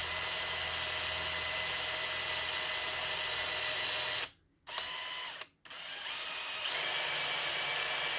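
Electric drill running steadily with a small bit, drilling out a broken screw of very soft metal, like aluminium. It stops twice briefly just past the middle, then runs on at a slightly higher pitch.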